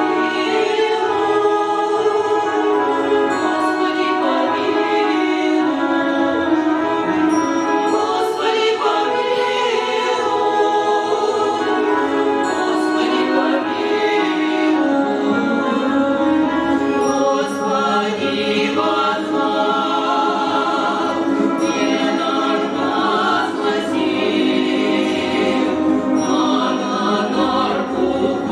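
A choir singing a song with musical accompaniment, continuous throughout.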